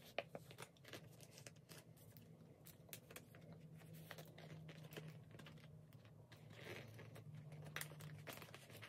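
Faint crinkling and rustling of plastic binder sleeves as postcards are slid and pushed into the pockets, with a scatter of small scrapes and clicks.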